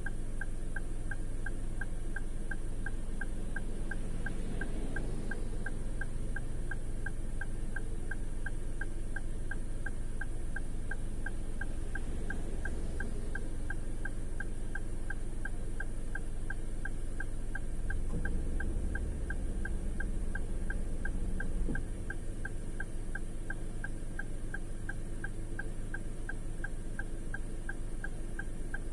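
Hazard-light relay ticking evenly, about two to three ticks a second, over the steady low hum of the parked car's idling engine. A louder low rumble swells for a few seconds past the middle.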